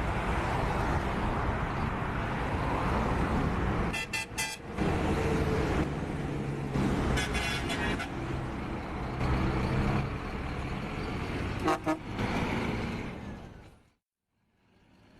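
Car engines running with straight-piped exhausts, and a car horn sounding three times. The sound fades out about a second before the end.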